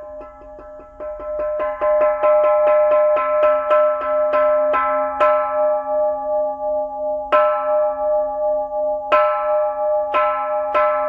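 Kansho, a Japanese bronze temple bell, struck on its boss with a wooden mallet in the pattern used to call people to service. A quick roll of strokes speeds up, then slows and spaces out. Two single strokes follow about two seconds apart, and another quick roll starts near the end, each stroke adding to one ringing tone that carries on underneath.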